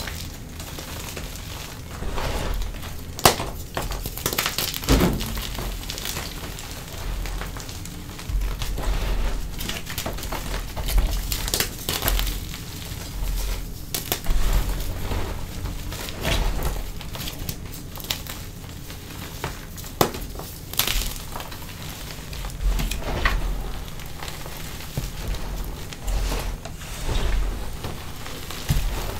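Purple pasted gym chalk (Glassy Chalk paste over Faux BSN cores) crushed and crumbled in the hands: irregular crunching and crackling as chunks break up and powder shifts, with a few sharper cracks.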